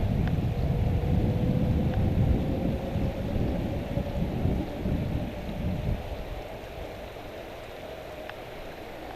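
Wind buffeting a GoPro's microphone: a heavy, gusty low rumble that eases off about six seconds in.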